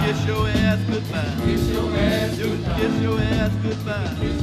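Recorded music mixed from DJ decks: a track with a wavering singing voice over a steady bass line.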